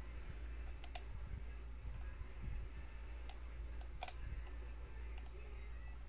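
Scattered small metallic clicks of a lock pick and tension wrench working the pins inside a challenge lock being picked. About seven irregular clicks, the loudest about four seconds in, over a steady low hum.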